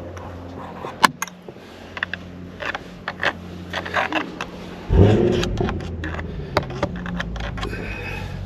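Small clicks, taps and scrapes of hands and tools working plastic trim loose from a car's steering wheel, with a heavier low thump about five seconds in over a steady low hum.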